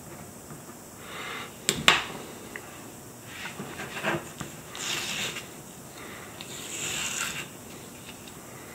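Masking tape being peeled off paper in a few short tearing pulls, after a couple of sharp clicks about two seconds in.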